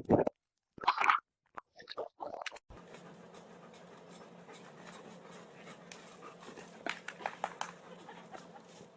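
A dog making short vocal sounds about a second and two seconds in, followed by a quieter stretch with a faint steady hum and a few sharp clicks near the end.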